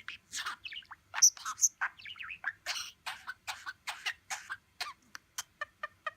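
Budgerigar chattering: a fast, unbroken run of short chirps, clicks and squeaky notes.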